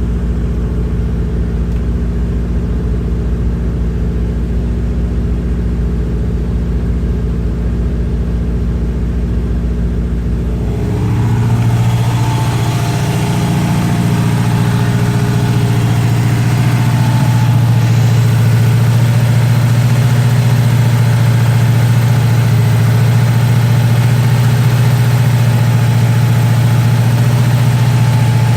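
Car engine idling steadily. About eleven seconds in, its speed steps up and then holds at a higher, steady pitch, a little louder.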